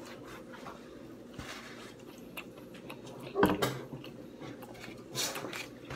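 Eating pizza: quiet mouth and chewing sounds with small clicks and ticks of handling, and a short voice-like sound about three and a half seconds in.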